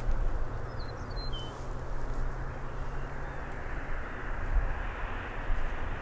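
Steady low rumble of a distant engine, with a rushing hiss that swells in the second half, and a few short bird chirps about a second in.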